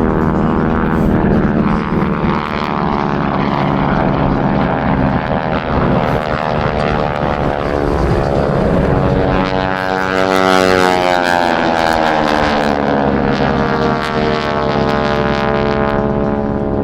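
Formation of North American SNJ-2 warbirds flying past, their radial engines and propellers droning loudly. About ten seconds in, the pitch drops as the planes go by.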